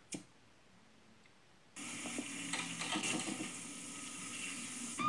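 Television sound during a satellite channel change: a short click, then near silence while the receiver switches. About two seconds in, the new channel's soundtrack comes in as a steady rushing hiss with faint tones under it.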